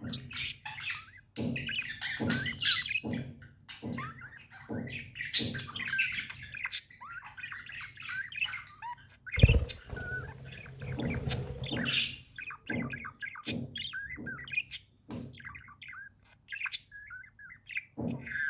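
Pet budgerigars chattering and warbling: a continuous run of quick chirps and twittering calls. One loud thump about halfway through.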